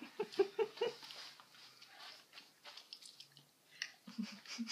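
Biting and chewing sounds from a girl eating a frozen fudge bar, with a few short vocal noises in the first second.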